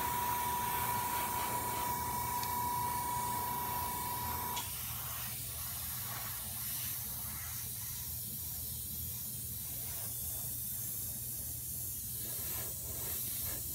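Airbrush spraying paint, a steady hiss of compressed air. Under it, a steady whine with a low hum cuts off suddenly about four and a half seconds in, while the hiss goes on.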